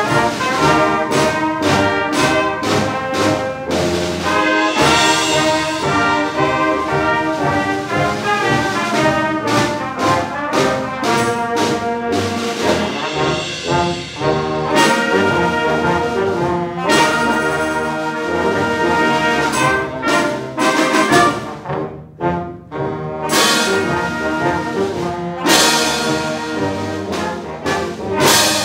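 A high school concert band of woodwinds, brass and percussion playing a piece together, with sustained chords and frequent percussion strokes. The sound briefly drops away about three-quarters of the way through.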